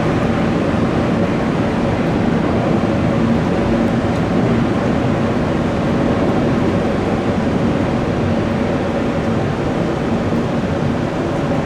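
Jet airliner engines running: a loud, steady noise with faint steady hums through it.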